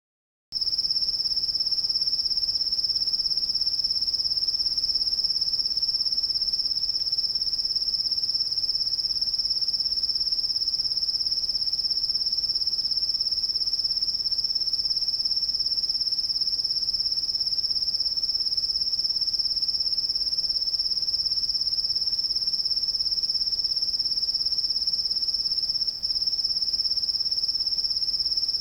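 Night-time insect chorus: a steady, unbroken high-pitched trill that starts about half a second in.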